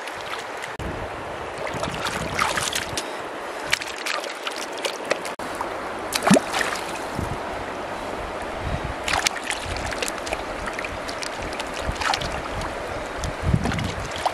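Hands washing jicama tubers in shallow river water, with irregular splashes and sloshing over the steady rush of the flowing stream.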